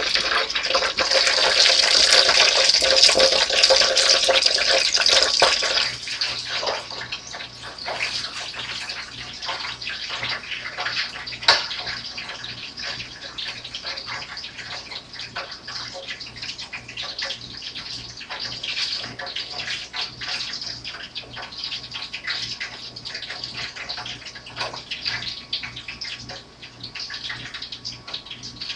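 Chicken wings sizzling and crackling in an electric deep fryer's hot oil. The sizzle is loudest for the first few seconds, then drops to a quieter, steady crackle.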